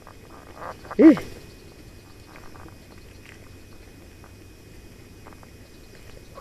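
A single short animal call about a second in, rising and falling in pitch once, over faint outdoor background with a few small ticks.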